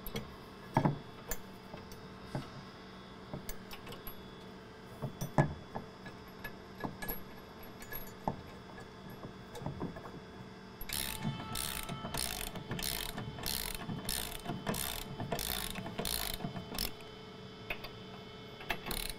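Scattered metal clicks and taps as 19 mm nuts are started on the fuel tank's front hook-support stud. A little past halfway, a socket ratchet clicks in a steady run of quick strokes for about six seconds as a nut is run up the stud.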